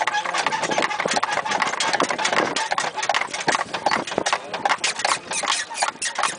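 Clip-clop of two horses' hooves on asphalt as they pull a buggy: a quick, irregular stream of hoof strikes.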